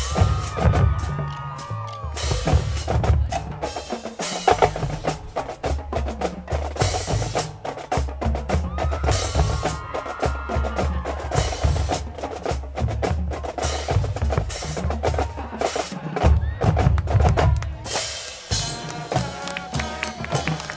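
Marching band drumline playing a drum break of rock beats, with fast snare and bass drum hits. A few held notes from other instruments sound over it near the start and about halfway through.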